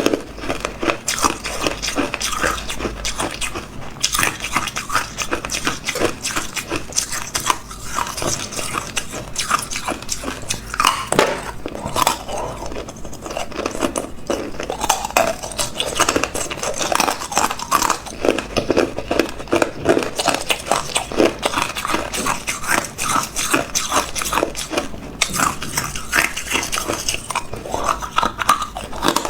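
Hard ice being bitten and chewed close to the microphone: a continuous run of sharp, rapid crunches and cracks as the ice breaks between the teeth.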